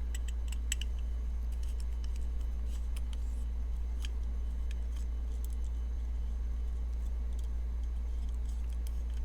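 Light clicks and taps of a folding pocketknife's metal parts being handled while its pivot is seated, a few in the first second and a couple more around three to four seconds in, over a steady low hum.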